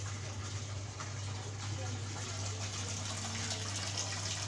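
Water pumped by a submersible Tetra Pond Pump 1000 pouring and splashing from an outlet pipe into a fish tank, as a steady gush with a low hum underneath.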